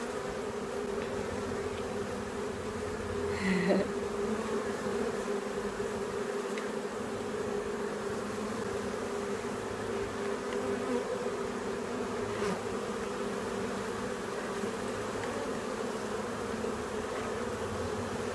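Honeybees buzzing over a brood frame lifted out of an open hive: a steady, dense hum of many bees on the comb and in the air, with one brief louder note about four seconds in.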